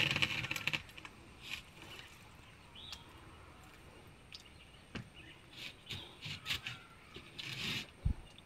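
Steel trowel scraping wet cement mortar on a concrete slab in a short rasping burst, followed by scattered light scrapes and clicks as clay terracotta tiles are handled and set. There is a dull knock near the end as a tile is pressed down.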